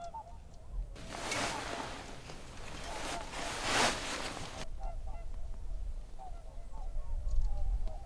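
A flock of geese honking, many short overlapping calls. From about a second in until near five seconds, a loud rustle of cloth being handled covers the calls.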